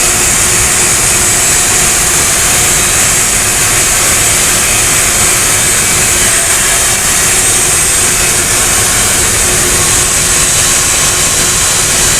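Heat pump water heater unit running: a loud, steady rush of fan air with a constant machine hum under it.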